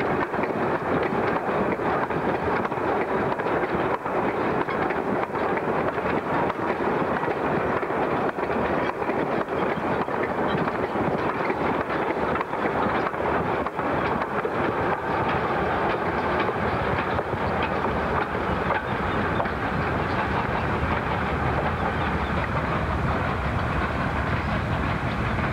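A long train of coal wagons rolling past close by, their wheels clattering steadily over the rail joints.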